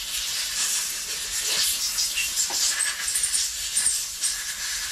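Compressed air hissing steadily as dirt and old oil are blown off the parts of a stripped-down Stihl MS 200T chainsaw, the hiss swelling and easing as the air nozzle is moved.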